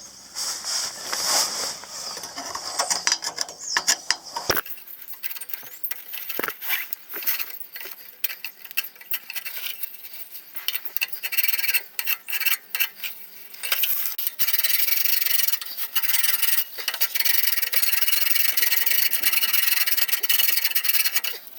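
Hand file rasping over the metal of a car exhaust in repeated strokes to clean it up. The strokes come faster and run almost together in the second half.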